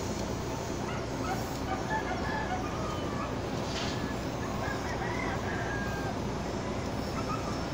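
Steady low drone of a general cargo ship's diesel engine running at slow manoeuvring speed, heard from on deck. Faint short high-pitched animal calls come and go between about one and six seconds in.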